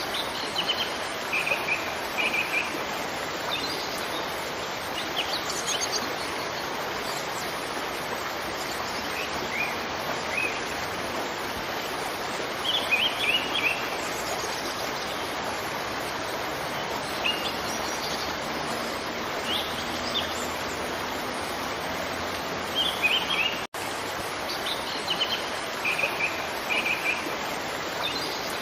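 Steady rush of a waterfall with small birds chirping over it in short, scattered bursts of high notes. Near the end the sound cuts out for an instant, then resumes as before.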